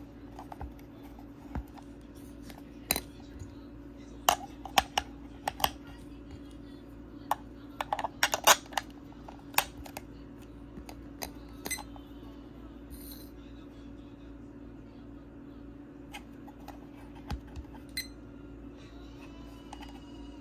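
Hands handling a small plastic digital clock: sharp plastic clicks and taps as its battery compartment is opened and the batteries handled, bunched around four and eight seconds in and sparser after. A steady low hum runs underneath.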